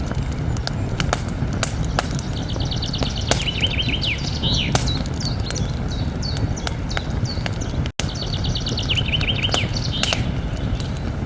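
Campfire crackling with sharp pops over a steady low rush of burning wood, while a songbird sings a short phrase of rapid repeated notes twice, about two seconds in and again about eight seconds in. The sound cuts out for an instant just before the second phrase.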